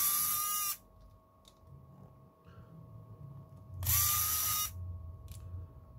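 Small electric screwdriver spinning up with a short rising whine, running in two bursts of about a second each, a few seconds apart, while backing out a tablet's motherboard screws.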